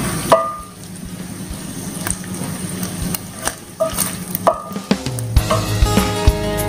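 Chicken and shrimp sizzling in a hot nonstick pan while a spatula scrapes and scoops them out, with a few short squeaks. Background music comes in about five seconds in.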